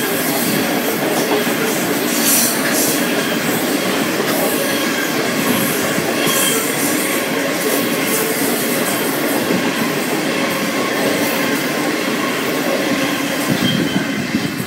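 Coal hopper wagons of a freight train rolling past close by: a steady, loud rumble and clatter of steel wheels on rail, with faint squealing from the wheels.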